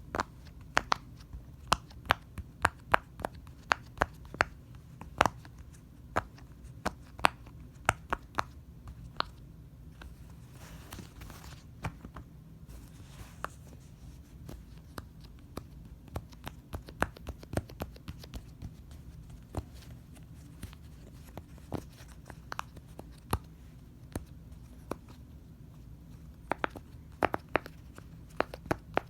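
Fidget toys handled, giving many sharp, irregular clicks and snaps, with a short stretch of rustling about halfway through.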